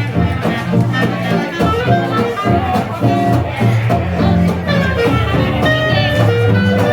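Live swing jazz band playing, a fiddle melody over a steady strummed rhythm guitar.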